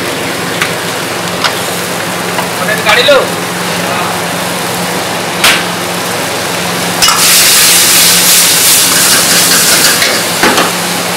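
Vegetables stir-frying in a wok: a steady sizzle with a low hum underneath and a few sharp clacks of the metal ladle against the wok. About seven seconds in, the sizzle turns to a loud hiss for about three seconds, then drops back.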